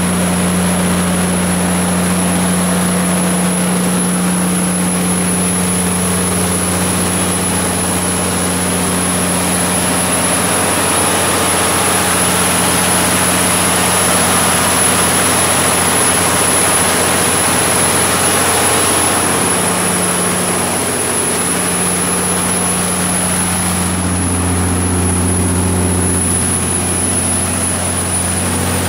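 Cummins QST30 V12 diesel engine of a 750 kW standby generator set running steadily at constant speed, a loud, even low drone. A thin steady high whine sits above it.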